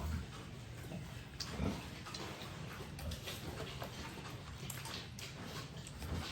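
Sow and newborn piglets in a pen: many scattered small clicks and knocks, with a few low grunts.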